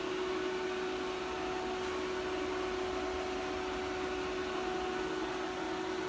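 Steady machinery hum with a constant mid-pitched tone over an even hiss, unchanging throughout.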